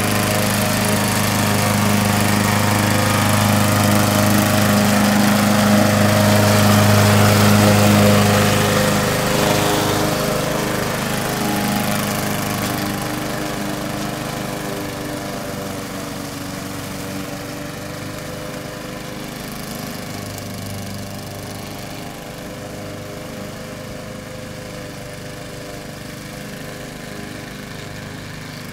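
Lawn mower engine on a remote-controlled robotic mower running steadily, loudest about eight seconds in, then fading gradually as the mower drives away.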